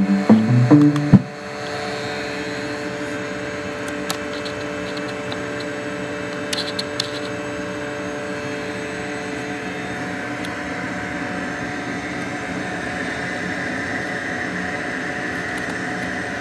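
A short run of heavy bass notes stepping in pitch through the car-audio system cuts off about a second in. It is followed by a steady whirring hum with a high hiss.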